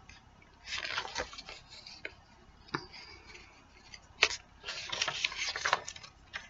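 Pages of a glossy paper brochure rustling and flapping as they are turned, in several short bursts with a sharp snap about four seconds in.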